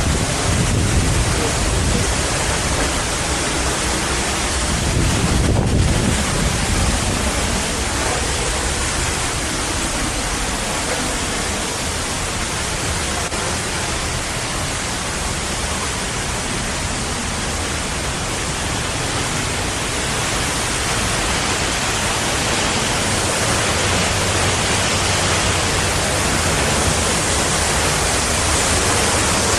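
Steady roar of South Falls, a large waterfall, heard up close as a dense, even rush of falling water. The low rumble swells briefly about five seconds in.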